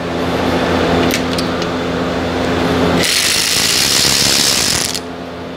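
Cordless electric ratchet running a rear brake caliper bolt in. It runs steadily at first, turns much louder and harsher from about three seconds in, and stops shortly before the end.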